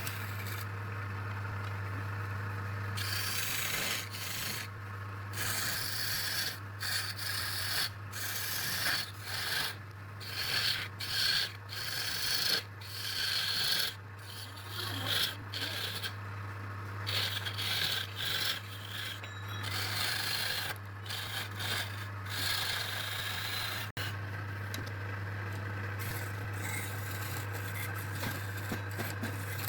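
Hand-worked abrasive strokes on wood, such as filing or sanding: many short, irregular rubbing passes over a steady low hum. The strokes come thickest in the middle part and die away well before the end.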